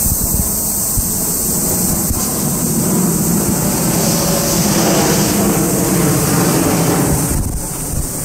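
Outdoor background noise: wind buffeting the microphone, with a low rumble that swells about three seconds in and eases off near the end.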